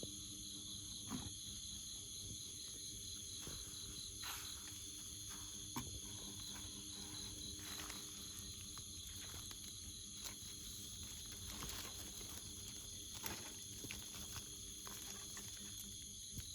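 Steady chorus of jungle insects, several high shrill notes held together, one of them pulsing quickly. Scattered short rustles and clicks sound over it.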